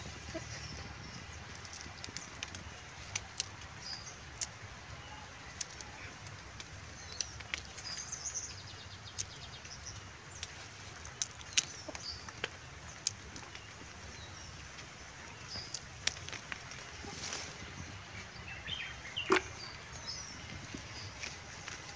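Irregular sharp snaps and clicks of coffee cherries being plucked by hand from the bushes, with leaves brushing, and faint bird chirps in the background.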